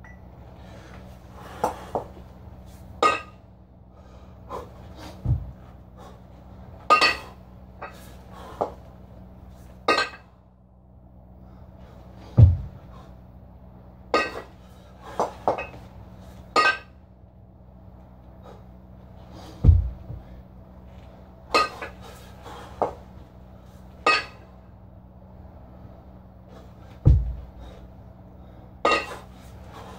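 A pair of kettlebells clinking and clanking against each other during repeated two-handed cleans and overhead presses, with sharp metallic knocks that ring briefly. A dull low thud comes about every seven seconds, four times.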